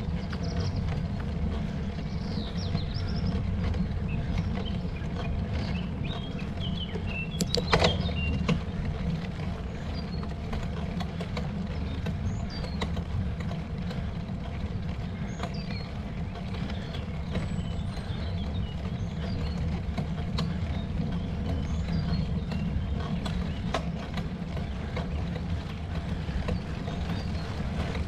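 Steady low rumble of wind and road noise while riding a road bike uphill, with scattered short high chirps and a sharp click about eight seconds in.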